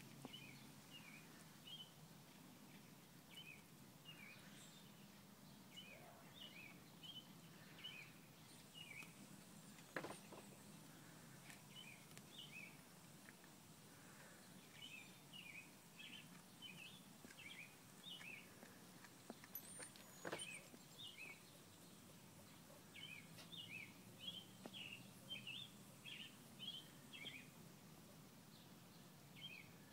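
Faint outdoor ambience with a small bird chirping over a low steady hum: quick high chirps come in bursts of several a second, with gaps between bursts. Two sharp clicks stand out, about a third of the way in and about two thirds of the way in.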